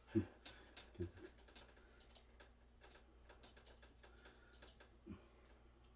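Faint eating sounds of a man chewing raw hairtail sashimi: small wet mouth clicks and smacks, with three soft low thumps, near the start, about a second in and near the end.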